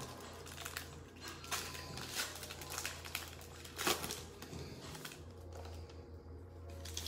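Foil trading-card pack wrapper crinkling as gloved hands pull it open and slide the cards out: scattered crackles and rustles over a low steady hum.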